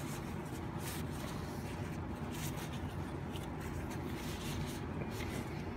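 Faint handling noises from a rag rubbing and wiping a stripped AR-15 lower receiver as it is turned over in the hands, a few soft scratches over a steady low hum.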